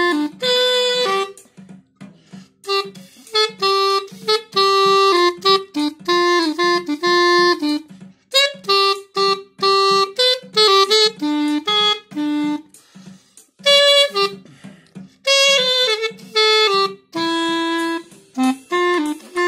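3D-printed plastic pocket clarinet in C playing a melody in phrases broken by short pauses, over a background beat that pulses at a steady tempo.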